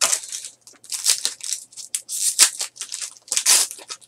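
Foil trading-card pack wrapper being torn open and crinkled by hand, a run of uneven rips and crinkles.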